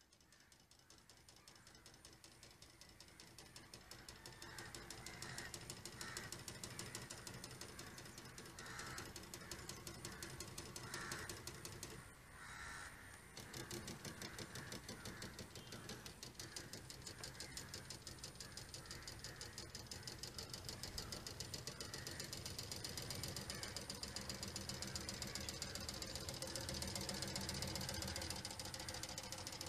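Small electric outboard motor driving a model-aircraft propeller, a fast, even mechanical buzz that grows louder over the first few seconds as the kayak comes nearer.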